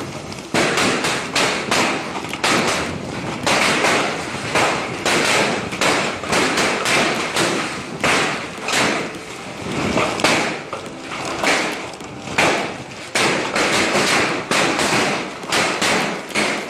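Large hailstones pelting hard surfaces: a dense, irregular clatter of thuds and taps over the steady hiss of the storm.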